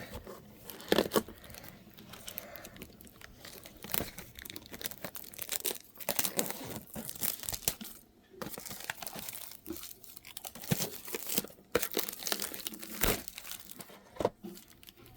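Packaging being torn and crinkled by hand: a sealed box of basketball trading cards being unwrapped and opened, in irregular crackling bursts with brief pauses.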